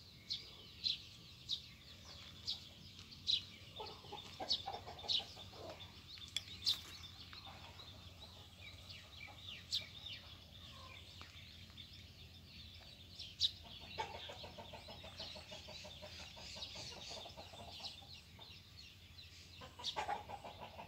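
Quiet farmyard sounds: chickens clucking now and then, with short, sharp high chirps from small birds scattered throughout.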